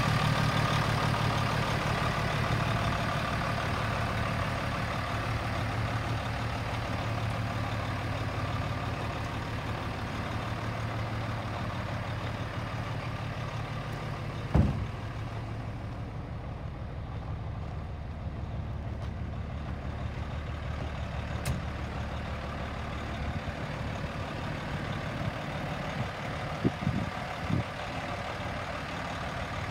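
1998 International dump truck's diesel engine idling steadily, fading somewhat over the first half. There is a single sharp knock about halfway through and a few more short knocks near the end.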